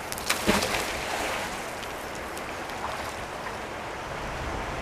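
A fishing magnet splashing into canal water about half a second in, followed by a steady outdoor hiss.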